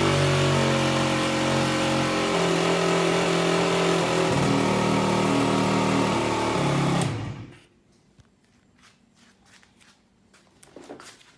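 Aprilia SR50 Purejet's Piaggio 50 cc two-stroke direct-injection engine running steadily, its revs shifting slightly, then switched off about seven seconds in. A few faint clicks follow. The engine is running on an original cylinder and piston, which got it to start and run properly after a rebuild.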